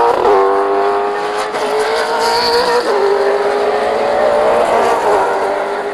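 V8 Supercar's V8 engine running hard at high revs. Its note climbs slowly, then drops sharply at gear changes near the start and about halfway through, with a smaller dip later on.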